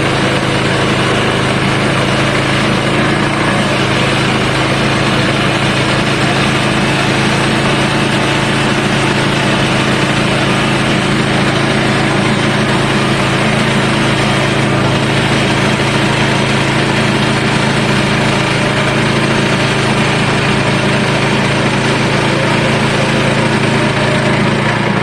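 Petrol engine of a sawmill running steadily at a constant pitch while milling a hard southern rata log, dropping away right at the end.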